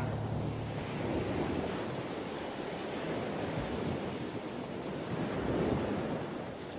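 Sea waves washing over open water: a steady rushing wash that swells a little about a second in and again near the end.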